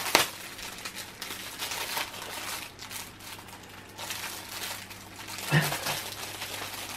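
Clear plastic packaging crinkling irregularly as it is handled and pulled open, with a sharp loud rustle just after the start. A short vocal sound comes about five and a half seconds in.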